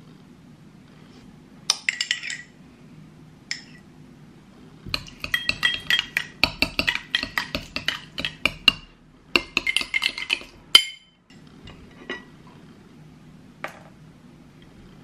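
Metal spoon clinking and scraping against glass as blackberry jelly is spooned into glass tumblers: a single clink about two seconds in, then a quick run of many clinks from about five seconds in until just before eleven.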